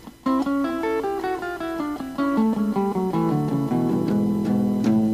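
Guitar picking a run of single notes that steps downward, then settling onto held, ringing notes near the end as the song closes.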